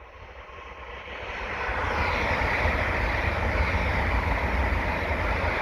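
Class 70 diesel locomotive approaching: its engine noise swells over the first two seconds, then runs loud and steady with a deep rumble.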